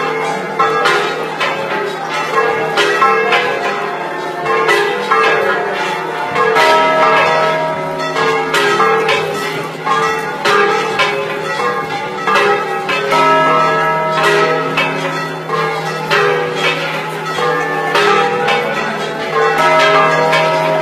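Church bells ringing in a continuous peal, strokes at several pitches following one another and overlapping.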